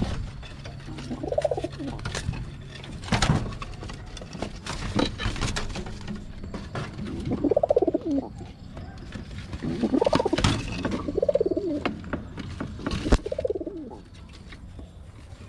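Domestic pigeons cooing: five separate coos, each a note that rises then falls, one early and four close together in the second half. A few sharp knocks sound between them.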